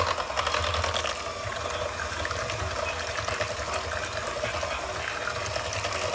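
Electric hand mixer running steadily, its beaters whirring and churning through a wet pie batter of crushed pineapple, sugar, eggs and butter.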